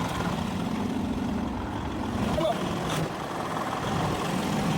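Semi truck's diesel engine idling steadily, with a single sharp click about three seconds in.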